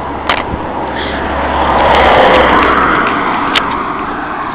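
A car driving past on the road beside the pavement. Its noise swells to a peak about halfway through and fades away.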